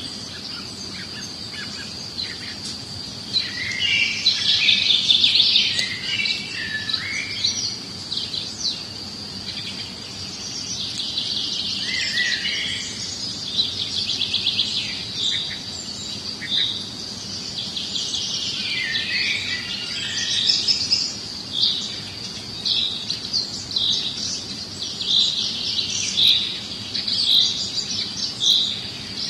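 Small songbirds chirping and twittering, with a steady thin high tone running underneath. In the last few seconds one short note repeats about twice a second.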